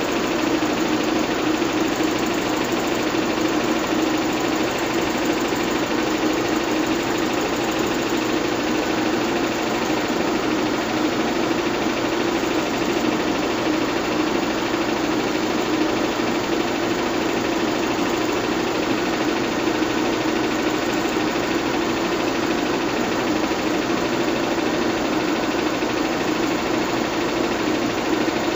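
Bell & Howell 122 LR 8mm film projector running steadily at its highest speed, its motor and film transport giving an even mechanical whir with a strong low hum.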